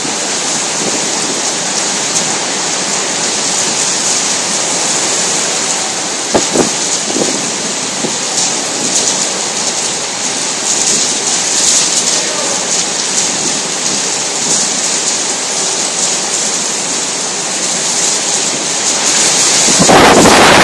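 Heavy hurricane rain pouring steadily, with a couple of sharp knocks about six seconds in. Near the end a gust of wind hits the microphone and the rush grows louder.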